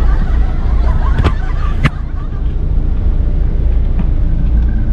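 Car driving, a steady low rumble of engine and road noise, with two sharp clicks a little over a second in.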